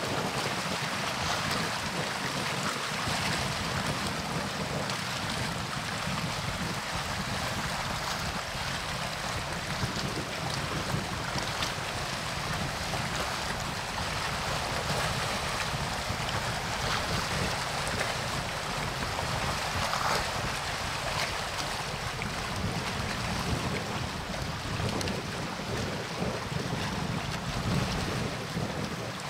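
Steady wind buffeting the microphone over a continuous wash of water, with a low rumble underneath.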